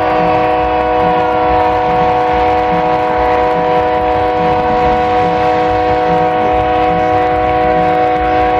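A loud, steady chord of several held horn-like tones over the noise of a packed football stadium, with a faint regular beat low underneath.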